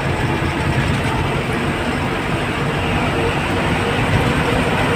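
Tata bus's diesel engine and road noise heard from inside the cab, a steady drone as the bus runs at speed past a dump truck, swelling slightly toward the end.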